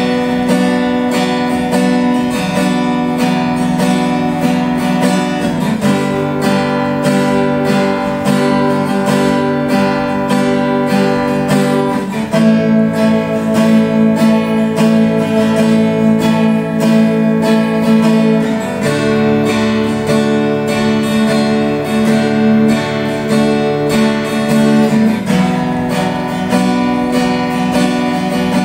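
Yamaha F310 steel-string acoustic guitar playing a run of chords, changing chord about every six seconds.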